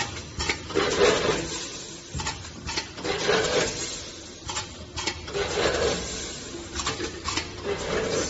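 Tin can filling and seaming machine running through its cycle: a longer noisy stroke repeats about every two and a half seconds, with sharp clicks in between.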